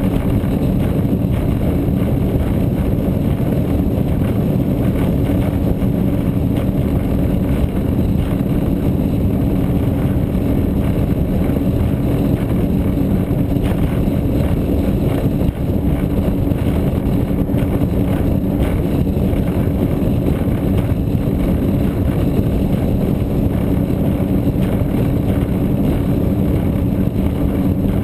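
36-foot Cigarette Gladiator offshore powerboat under way at a steady speed: a constant engine drone with an unchanging pitch, mixed with the rush of wind and water over the hull.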